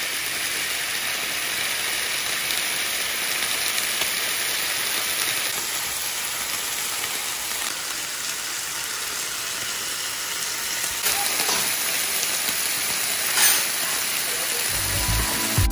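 Beef steaks sizzling as they sear in a hot nonstick frying pan, a steady hiss, with a brief louder pop near the end.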